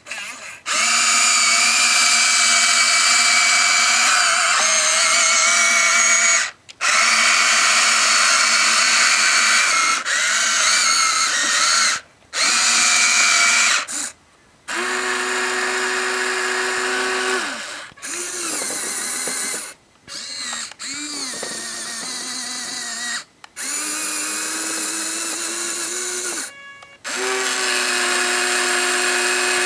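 Huina 1593 RC excavator's small electric motors whining in runs of a few seconds each, stopping and starting about eight times while the machine clears snow. The pitch mostly holds steady and sweeps up and down in places.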